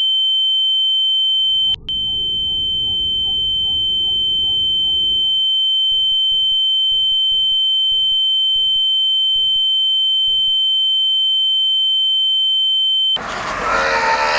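A loud, steady, high-pitched electronic tone held with a fainter lower tone, over a low rumble that gives way to a row of short pulses. The tones cut off about a second before the end, and a loud noisy burst with swooping glides takes over.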